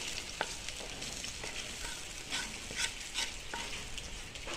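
Chicken and vegetable masala sizzling in a hot pan while a spatula stirs it, with a steady frying hiss and several short scrapes and taps of the spatula against the pan.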